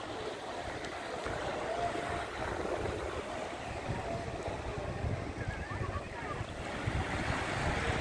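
Sea waves washing onto a rocky, sandy shore, with wind gusting on the microphone.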